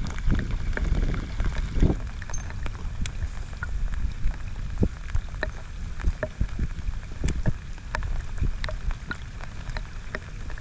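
Rain falling, with single drops striking close by as sharp irregular ticks, over a low rumble of wind on the microphone.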